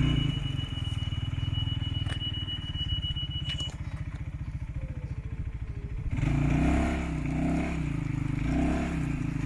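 UTV engine running with a fast, even low pulsing, a thin high whine over it for the first few seconds; about six seconds in it is revved, the pitch rising and falling several times.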